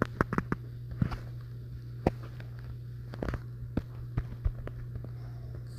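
Irregular sharp taps and clicks of fingers on a phone's touchscreen while drawing, over a steady low hum.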